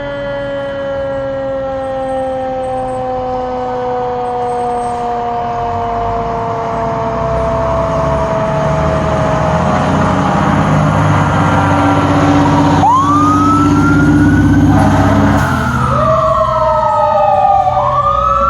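A fire truck's siren slowly winding down in pitch while the truck's diesel engine builds up. About two-thirds of the way in, a siren starts a fresh wail that rises sharply, then falls and rises again.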